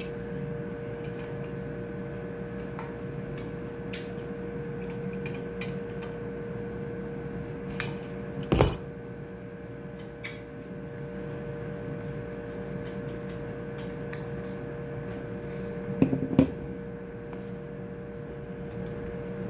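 Metal parts of an elevator brake coil assembly clinking and knocking as they are handled, with light clicks throughout and two louder knocks, one about eight and a half seconds in and a pair around sixteen seconds. A steady hum with several fixed tones runs underneath.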